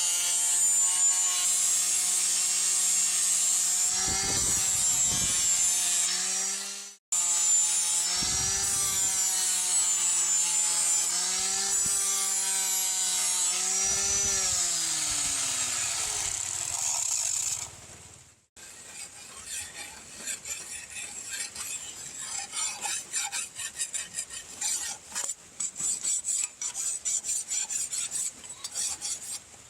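An electric grinder's motor running steadily against steel, its pitch sagging and recovering several times as the work is pressed in. It is followed by a run of irregular hand scraping or filing strokes on the blade.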